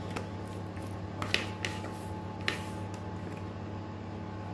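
A spoon scraping frangipane (almond cream) from a bowl onto a sheet of puff pastry: a few soft scrapes and taps about a second in and again about halfway through, over a steady low hum.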